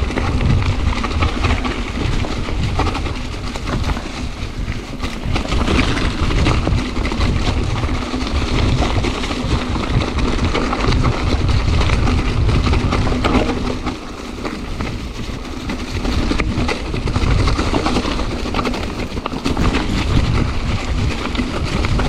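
Wind buffeting the microphone of a camera on a moving mountain bike, over the steady rolling noise of the ride, rising and falling in gusts.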